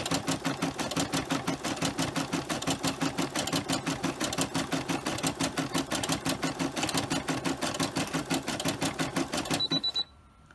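Embroidery machine stitching a cross-stitch fill with a rapid, even rhythm of needle strokes, then stopping abruptly near the end with a brief high beep: the machine halting because the bobbin thread has run out.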